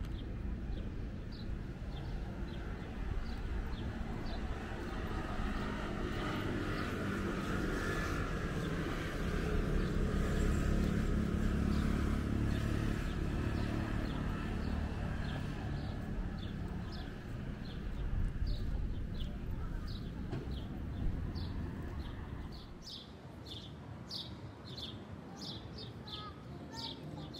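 A motor vehicle going by, its low engine rumble growing louder toward the middle and fading away before the end. Small birds chirp in short repeated notes throughout, more thickly near the end.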